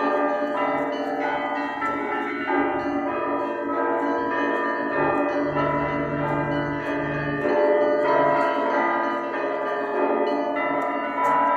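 Russian Orthodox church bells being rung: several bells of different pitches struck in a quick, steady rhythm, their tones ringing on over one another, with a deeper bell tone swelling about five seconds in.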